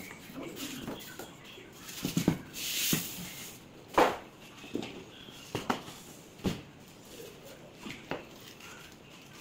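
Irregular knocks and thuds from handling a flat-screen TV and its cardboard box, with a rustle of plastic wrapping about two and a half seconds in. The loudest thud comes about four seconds in.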